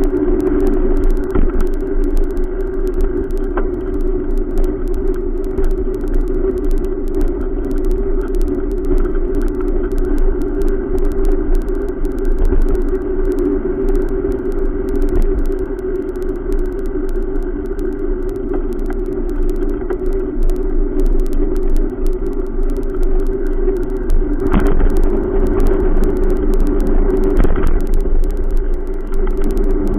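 Steady riding noise picked up by a camera on a moving bicycle: a constant hum over a low wind rumble, with two short knocks near the end as the wheels hit cracks in the sidewalk.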